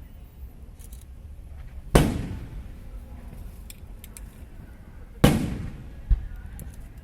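Aerial fireworks shells bursting: two loud bangs about three seconds apart, each trailing off in a rolling echo, then a lighter thump shortly after the second.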